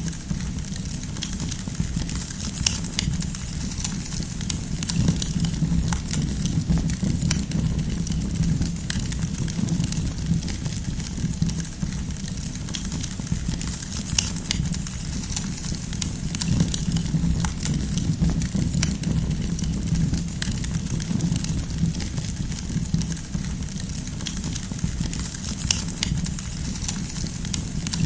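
Wood campfire burning, with a steady low rumble of flames and scattered sharp crackles and pops of the firewood.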